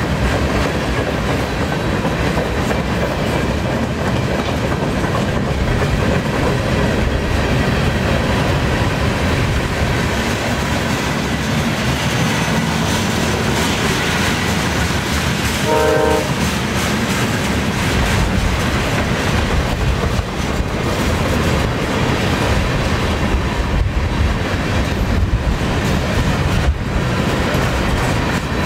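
Freight cars of a long CN freight train rolling steadily past at about 19 mph, a continuous loud rumble of wheels on rail. About halfway through, a single short blast from a train horn, sounded by the approaching VIA Rail passenger locomotive.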